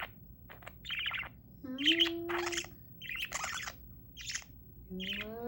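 Pet budgerigars chirping and chattering in several short bursts, with quiet gaps between them.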